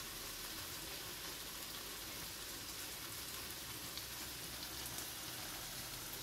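Chicken pieces in curry masala sizzling in a frying pan, a steady sizzle with a few faint pops.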